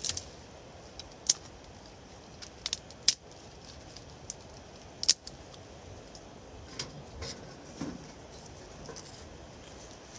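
Scattered sharp clicks and snaps of small dry twigs being broken and fed into a small titanium wood stove, with light metal clinks from the stove, the loudest about three and five seconds in.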